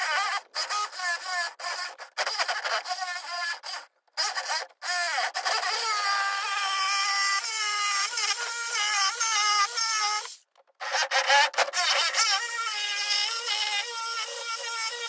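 Jigsaw cutting 3/4-inch pressure-treated plywood. Its motor whine wavers up and down in pitch as the blade works through the cut, and it drops out briefly twice.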